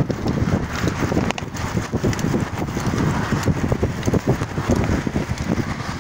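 Wind buffeting a phone's microphone while cycling: a dense low rumble with many small knocks and rattles mixed in.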